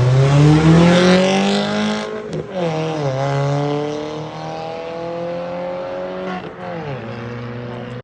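A car engine accelerating hard in a drag run, its pitch climbing through the gears, with upshifts about two seconds in, about three seconds in and again near the end, growing fainter as it pulls away.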